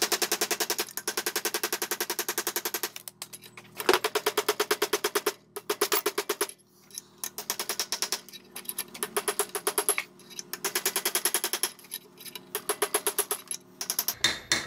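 Rapid hammer blows on a steel punch driving a pinion bearing race out of a Ford 4000 tractor's pinion housing, metal on metal with a ringing note. The strikes come about nine a second in runs of one to three seconds, with short pauses between.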